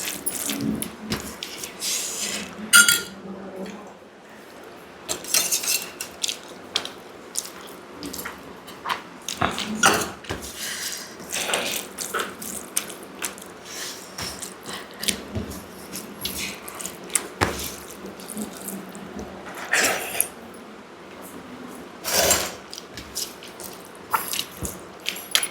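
Eating sounds of rice, dal and dahi vada: wet chewing, smacking and squelching, heard as many short irregular clicks, some louder than others.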